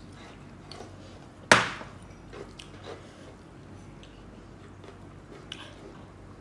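A drinking glass set down on a wooden serving board: a single sharp knock about a second and a half in. Faint small clicks and taps follow as she eats rice with her fingers.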